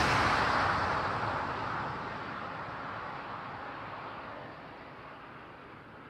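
A car that has just sped past, its noise fading away steadily as it drives off into the distance.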